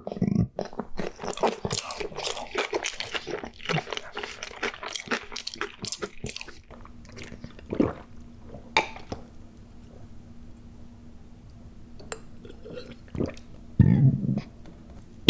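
Close-up crunching, like chewing something crunchy, fast and dense for the first six or seven seconds, then only a few single clicks. A short low sound comes about fourteen seconds in.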